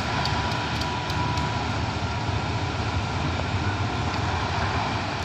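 Two coupled GEA-class GE diesel-electric locomotives running light past at low speed, their engines making a steady drone with a faint thin whine over it.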